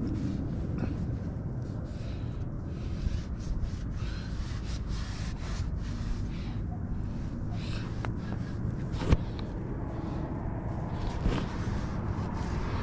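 Rag wiping over the truck's wheel and paint in short, irregular swishing strokes, over a steady low rumble. A single sharp click about nine seconds in.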